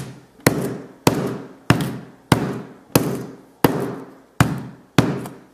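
A steel sledgehammer head is struck repeatedly onto an iPhone 5C with a shattered glass screen lying on a tabletop. There are about nine heavy blows at an even pace, roughly three every two seconds, each a sharp smack that rings off quickly.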